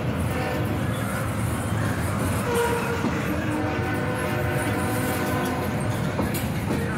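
CSX freight train rolling past close by, a steady rumble and rattle of cars on the rails, with a locomotive going by. A chord of steady tones, a train horn, sounds for about three seconds in the middle and then fades.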